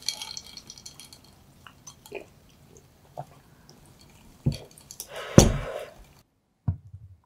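Light clinks and knocks of tableware being handled on a wooden table: a white pedestal dessert dish and its spoon. A louder clatter comes about five seconds in. The room background cuts off about a second later, and one more soft knock follows.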